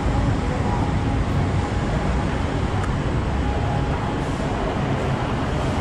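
Steady city traffic noise with a low rumble, with no single event standing out.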